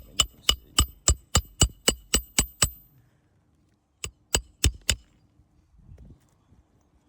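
Hand hammer driving long roofing nails into a 3-tab asphalt shingle: about ten quick ringing blows at roughly four a second, a short pause, then three more blows.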